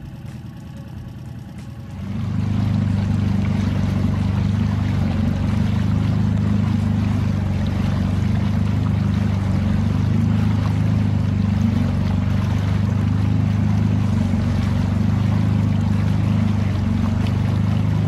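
Small outboard motor on an inflatable boat running steadily under way, with water and wind noise over it. It starts abruptly and loud about two seconds in.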